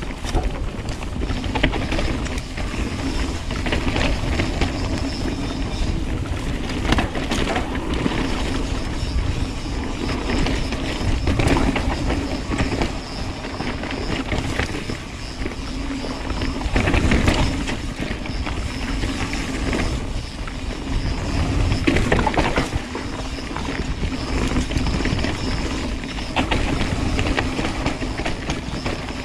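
Mountain bike riding a dirt singletrack, heard through a GoPro on the rider: steady rumble of tyres on the trail and wind on the microphone, with the bike knocking and rattling over bumps several times.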